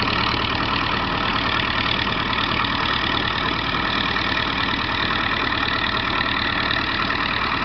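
Fiat 55 L crawler tractor's engine running steadily under load, pulling a plough.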